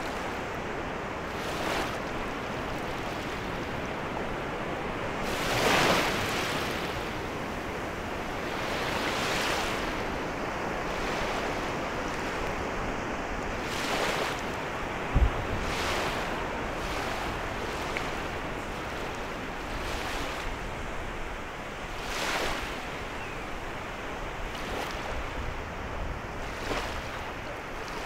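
Small sea waves washing in at the shoreline over a steady surf hiss, each wash swelling and fading every few seconds. A brief low thump on the microphone comes about halfway through.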